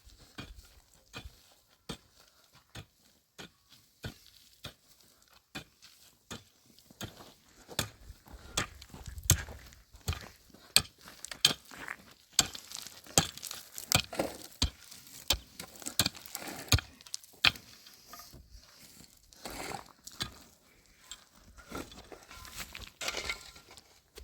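Irregular series of sharp clicks, knocks and clinks, like hard objects being handled and set down, sparse at first and busier and louder in the second half.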